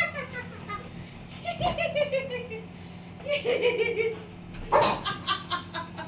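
A woman laughing in several bursts, ending in a quick run of giggles.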